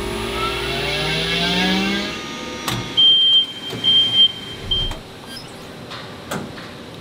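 Quincy QGDV-25 variable-speed rotary screw air compressor starting up, its motor hum rising steadily in pitch for about two seconds before it cuts off. This is followed by a few loud, short, high-pitched electronic beeps and a couple of sharp clicks.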